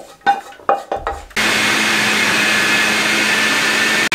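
Electric food processor grinding boiled lentils into a fine paste. It starts about a second in after a few knocks and clicks, runs as a loud steady motor whir, and cuts out briefly near the end.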